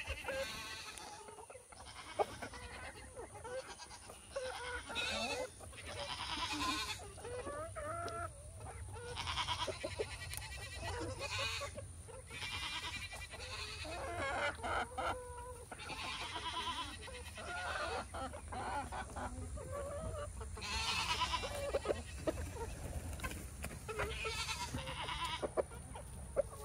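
A flock of chickens clucking and calling almost without pause while they peck at watermelon, with goats bleating among them now and then.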